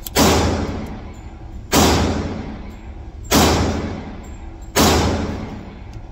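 Four gunshots fired one at a time, about every second and a half, each with a long, echoing fade in the enclosed indoor range.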